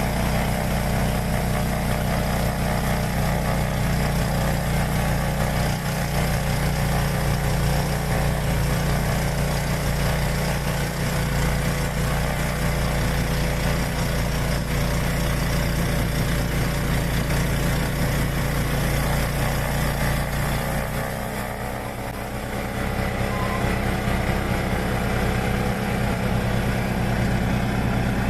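Yamaha YT1070 snowblower engine running steadily, with a short dip in level about three quarters of the way through before it settles again.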